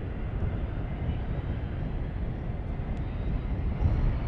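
Learjet 45 taxiing on its twin Honeywell TFE731 turbofans at low power: a steady rumble with a faint high whine that rises slightly near the end.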